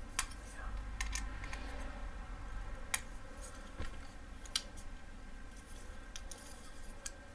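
Small, sharp metallic clicks and taps, about six spread irregularly, as a Torx T8 bit in a compact Benchmade bit driver is worked on a folding knife's pivot screw to tighten it.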